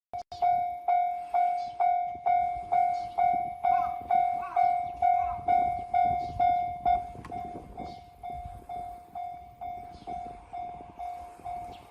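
Japanese railroad crossing warning bell clanging, "kan-kan", about two strikes a second, loud for the first seven seconds and then quieter. A low rumble builds under it around the middle.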